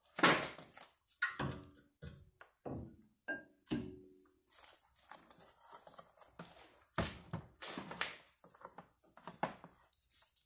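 Irregular clunks and knocks from tools and a portable 12-volt jump pack being handled at a car's rear brake caliper.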